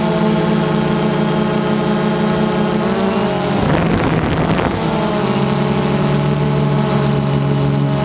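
Quadcopter drone's motors and propellers humming steadily, heard from the drone itself. About three and a half seconds in, a brief rush of wind noise covers the hum, which then comes back at a slightly lower pitch.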